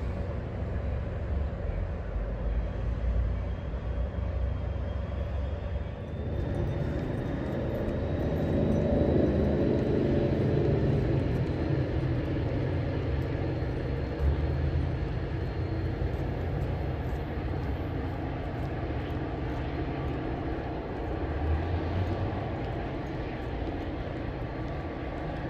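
Steady low rumble of a diesel commuter train's engine running at the station platform, swelling for a few seconds partway through, with a faint high whine that slowly rises in pitch.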